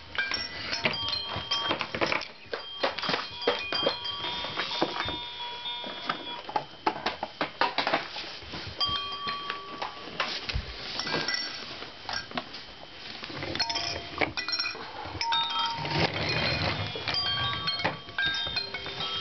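Electronic toy piano sounding short single notes at changing pitches, mixed with irregular knocks of wooden toy pieces being handled.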